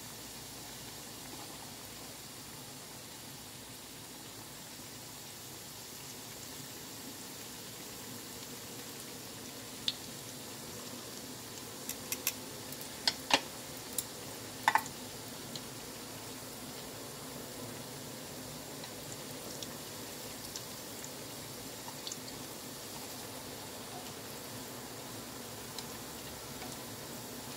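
Breaded sundae rolls deep-frying in a pan of oil: a steady sizzle, with a handful of sharp clicks and pops about ten to fifteen seconds in.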